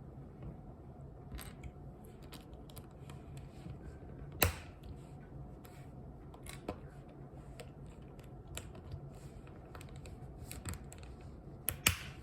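Small plastic pieces of a mini Rubik's cube clicking and tapping as they are handled and pried apart, with two sharper snaps, one about four seconds in and one near the end. A low steady hum runs underneath.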